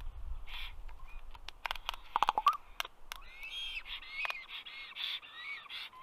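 Common raven making sharp clicking calls, a quick run of clicks about two seconds in and more at the end, between rough, rasping calls with short up-and-down pitch slides.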